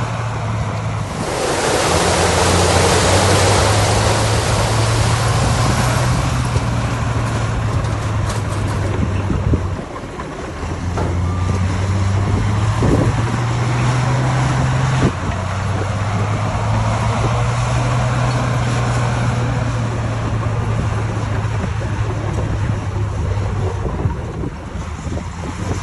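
Heavy diesel engine of earthmoving machinery running under load, its pitch stepping up and down several times and dropping briefly about ten seconds in. A loud rushing noise joins it for a few seconds near the start.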